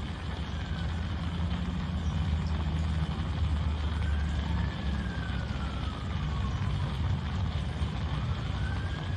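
Steady low traffic rumble with a faint siren wailing slowly up and down in pitch, about twice.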